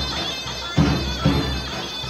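Davul and zurna: the zurna plays a shrill, reedy, sustained melody over heavy davul bass-drum strikes, two close together about half a second apart near the middle.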